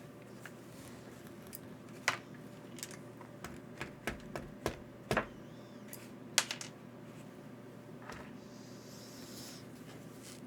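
Small metal tools and hardware clicking and tapping as screws and parts for an RC car's camber link are handled: about nine sharp clicks in the middle few seconds, then a soft rustle near the end.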